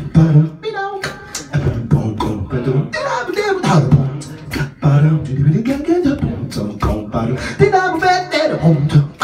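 Beatboxing into a handheld microphone: quick sharp mouth-percussion hits mixed with hummed and sung pitched sounds that bend up and down.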